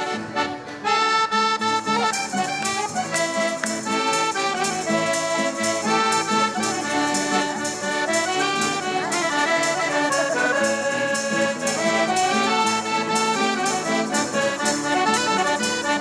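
Instrumental break of Azorean folk music: accordions playing the melody over guitar strumming, with a tambourine keeping a steady beat.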